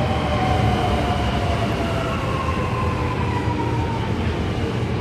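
Electric metro train whining, several tones slowly falling in pitch over a steady low rumble.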